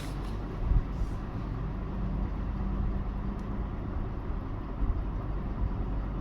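Steady low hum of background room noise, with a soft low bump about a second in and a few faint light ticks.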